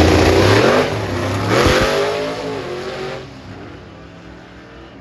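Drag racing car accelerating hard down the strip, its engine pitch climbing twice as it shifts up a gear, then fading as it pulls away.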